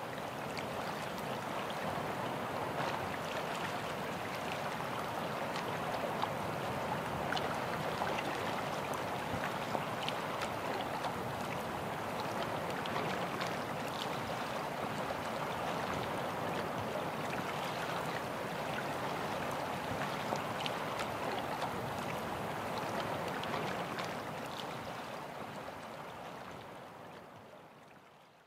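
Steady wash of lake water lapping and gurgling at the shoreline, with small splashes and ticks scattered through it; it fades out over the last few seconds.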